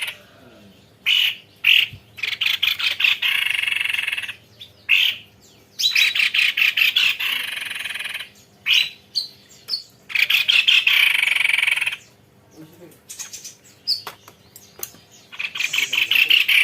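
White-bibbed babbler (tepus leher putih) singing long rolling trills: phrases of rapid, rattling notes, some running two to three seconds, repeated with short pauses between.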